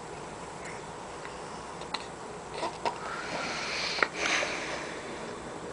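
A small boy hiccuping: several short, sharp hiccups, the loudest about four seconds in and followed by a breath, with quiet breathing and sniffing between them.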